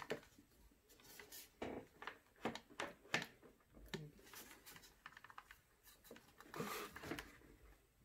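Faint clicks, taps and rustles of hands handling the orange plastic unit of a Power Probe ECT3000 and its lead in a plastic carrying case. There is a longer rustle near the end, when the unit is shaken, and no rattle from inside it.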